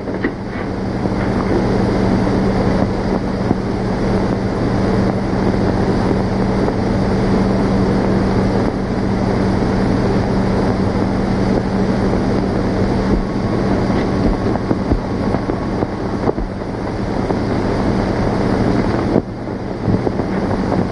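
Steady hiss with a constant low hum, the noise of an old optical film soundtrack. It swells in over the first couple of seconds and dips briefly near the end at the scene change.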